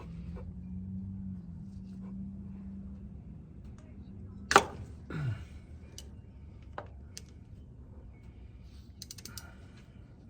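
A ratchet with a T45 bit straining on a tight, angled motorcycle oil drain plug: one loud sharp crack about halfway through as the plug breaks loose, then scattered ratchet clicks.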